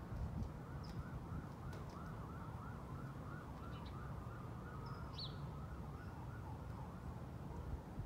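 Faint emergency-vehicle siren in a rapid yelp, its pitch rising and falling about three times a second and fading out near the end. A few short bird chirps sound over it, twice about a second in and at five seconds, above a steady low rumble.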